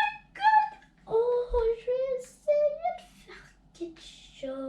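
A young girl's voice singing short, high, wordless notes that slide up and down.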